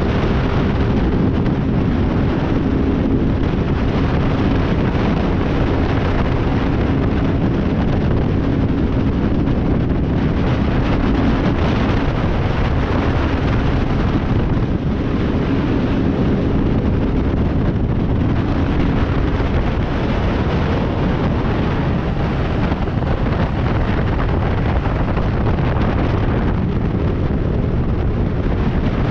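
Heavy wind buffeting on the camera microphone of a motorcycle riding at highway speed, with the motorcycle engine's steady drone underneath; the engine tone is clearest early on and sinks into the wind noise about twelve seconds in.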